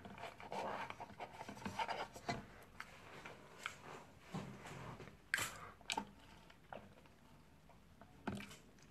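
Quiet rubbing and scraping of a plastic straw being worked through the lid of a paper soda cup, then scattered small clicks and mouth sounds of sipping through the straw.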